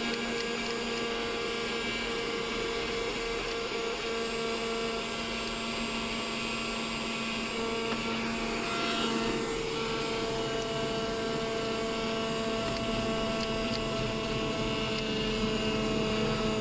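Vacuum cleaner running steadily with a constant motor whine, used to suck dust out of a laptop's cooling-fan exhaust.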